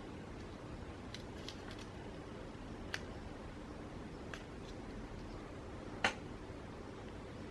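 Faint, scattered small clicks and taps of tools on a smartphone's tiny internal parts as a module is worked loose, with a sharper click about six seconds in, over a steady low hum.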